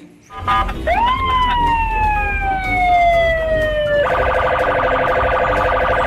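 Police car siren: a tone sweeps up and then falls slowly over about three seconds. About four seconds in, it switches to a fast pulsing warble. A low rumble runs underneath.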